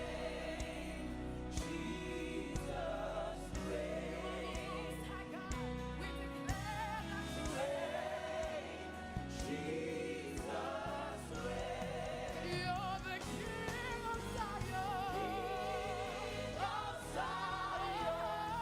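Gospel worship music: several voices sing long, wavering notes with heavy vibrato over a steady band accompaniment.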